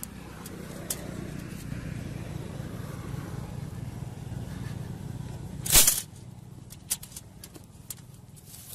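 A low engine hum, from a motor vehicle running close by, swells and then stops about six seconds in. At that point there is one brief, very loud burst of noise. Light clicks of wire against the wire-mesh trap follow.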